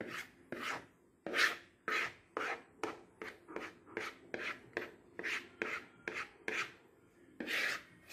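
A metal spoon scraping cake batter out of a plastic mixing bowl in quick repeated strokes, about two a second, with one longer scrape near the end.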